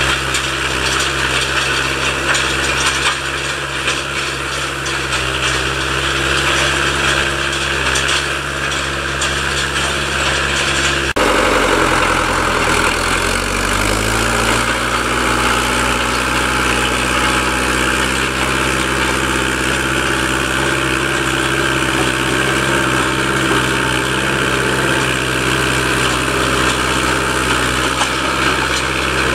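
Fiatagri 80-90 tractor's diesel engine running steadily under load while pulling a subsoiler through the soil. About eleven seconds in the sound changes abruptly to a lower engine note that climbs over a few seconds and then holds steady again.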